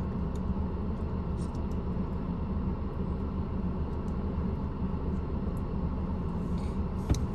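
An SUV's engine idling steadily, heard from inside the cabin, with a faint tick or two and a brief click near the end.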